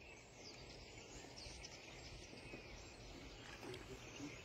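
Faint outdoor ambience: a quiet even hiss with a few faint, high, short bird chirps scattered through it.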